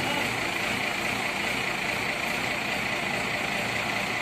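Crane truck's diesel engine idling steadily, with a constant hiss over it.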